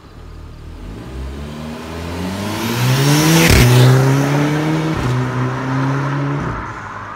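Volkswagen 4Motion car with a DSG gearbox accelerating hard past. The engine note rises, drops sharply at quick gear changes about three and a half and five seconds in, and rises again. It is loudest as the car goes by, then fades as it pulls away.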